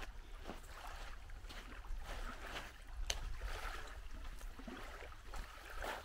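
Small waves lapping gently at a sandy shore, with a steady low rumble underneath and a single sharp click about three seconds in.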